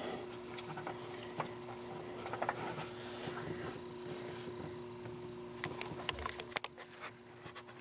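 Faint clicks and scrapes of a gloved hand spinning a loosened oil filter off a car engine, with a few more handling clicks about six seconds in, over a steady low hum.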